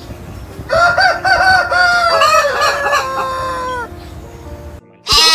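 A rooster crowing one long crow, about three seconds, with hens clucking around it. Near the end a loud bleat begins.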